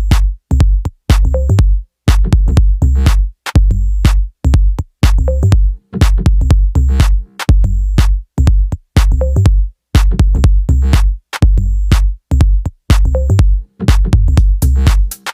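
Electronic background music with a heavy drum-machine beat and synthesizer, in a loop that repeats about every two seconds.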